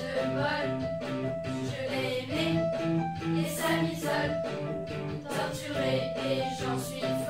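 Amateur school band playing a pop-rock song: electric guitar and keyboard over a drum-machine beat, with a group of young girls singing together.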